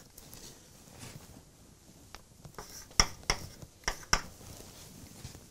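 Chalk writing on a blackboard: faint scratching, then four sharp taps of the chalk against the board, about three to four seconds in.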